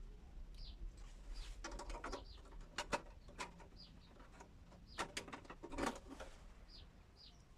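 Thin sheet-metal I/O shield rattling and clicking in bursts as it is handled and fitted into a PC case, with a small bird chirping repeatedly in the background.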